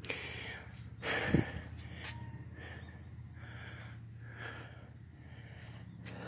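Insects trilling steadily at a high, even pitch outdoors, with a brief rustle about a second in.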